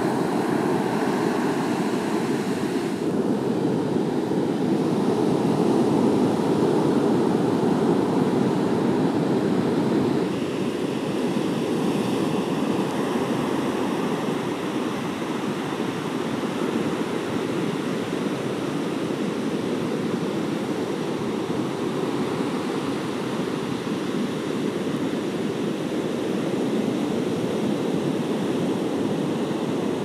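Ocean surf breaking on a sandy beach: a steady rush of several lines of breaking waves, a little louder in the first ten seconds.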